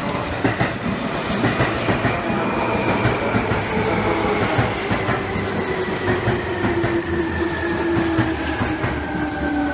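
Seibu 2000 series electric train pulling into the station: a whine that falls slowly in pitch as the train slows. Over it, running noise and the clicking of wheels over rail joints.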